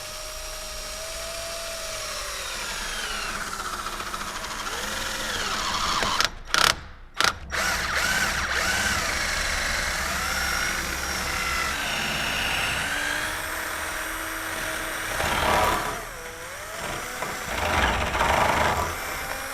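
Power drill boring out the rubber bushing of a Volvo XC90 front anti-roll bar, its motor pitch wandering as the bit loads up in the rubber. It stops briefly a couple of times about six to seven seconds in and dips again near sixteen seconds.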